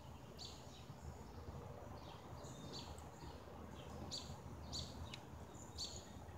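Birds chirping: short high chirps repeated irregularly, about once a second, over a faint steady low rumble of outdoor background noise.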